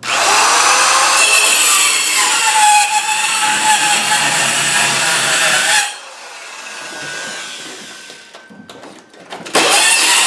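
Corded Performax 4-1/2-inch compact circular saw cutting through old wooden flooring, its motor whine wavering as the blade takes the load. The cut stops about six seconds in, the noise falling away. The saw starts cutting again near the end.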